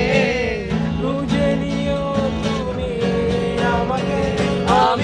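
Steel-string acoustic guitar strummed in a steady rhythm of about two strums a second, with a man singing along, his voice rising near the end.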